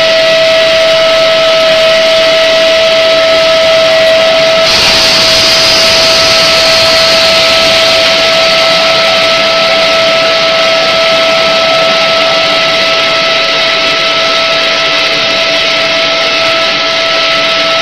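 HDPE extrusion blow molding machine running: a loud, steady machine drone with a constant whine. A brighter hiss joins about five seconds in and carries on.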